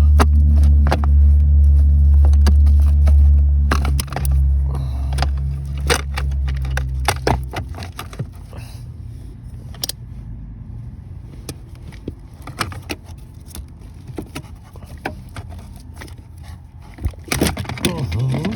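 A vehicle engine runs with a steady low hum, then stops about seven and a half seconds in. Light clicks and knocks of work on plastic dashboard parts with hand tools run throughout, with a short rising squeak near the end.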